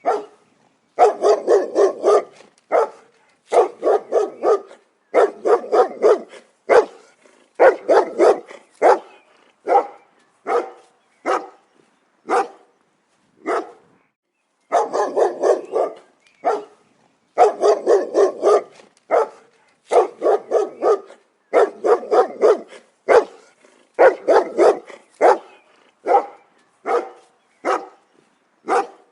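Dog barking over and over: quick runs of several barks, broken by short pauses and single barks.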